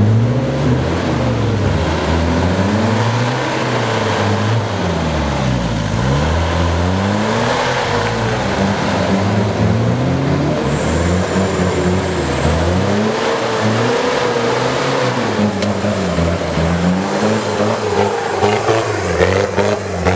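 Off-road 4x4 pickup's engine revving up and falling back again and again, every few seconds, as it pulls itself up a steep muddy slope under load.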